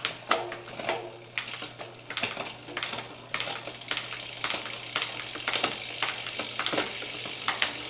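Bicycle drivetrain clicking and whirring as the cranks are turned on the freshly lubed chain, which runs over the cassette and rear derailleur while the shifting is checked after a B-tension screw adjustment.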